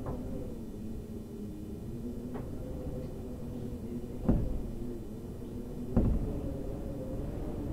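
Eerie wind moaning through a building's interior, a steady low rush with wavering whistling tones. Two loud thumps come about four and six seconds in, with a fainter knock before them.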